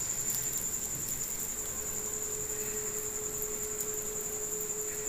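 Urad dal bondas deep-frying in hot oil, a steady sizzling hiss, with a steady high-pitched whine throughout and a lower steady hum joining about two seconds in.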